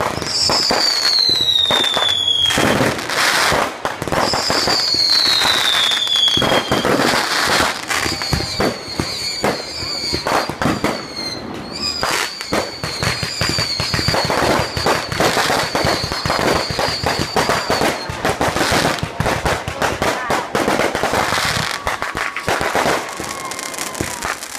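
Fireworks display: dense bangs and crackling shell bursts throughout. There are two high falling whistles in the first several seconds, and a long warbling whistle runs through the middle.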